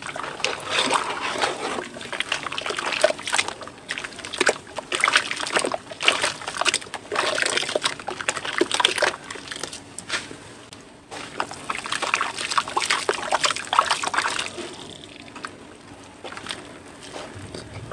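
Hands squeezing and crumbling soaked cement chunks in a bowl of water: irregular sloshing and splashing with sharp gritty clicks, dying down near the end.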